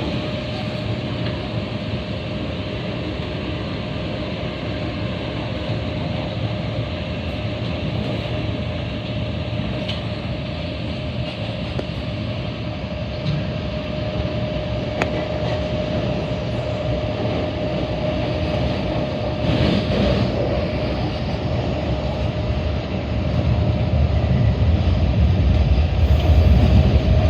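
MTR Tung Chung line K-stock train running at speed: a steady rumble of wheels on rail with a thin steady whine over it, getting louder in the last few seconds.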